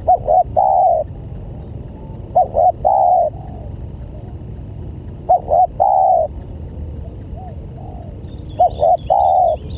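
Spotted dove cooing four times, about every three seconds. Each call is two short notes and then a longer drawn-out coo. Faint high chirps from a small bird come in near the end.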